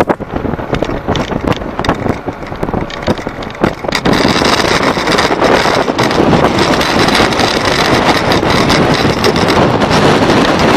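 Heavy wind buffeting the microphone over a running motor during a flooded-road crossing. About four seconds in the noise becomes louder and steady.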